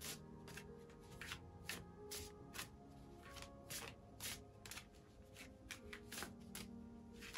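A deck of large oracle cards being shuffled overhand by hand, with a short crisp card snap about twice a second as packets drop from one hand into the other. Soft background music with held notes plays underneath.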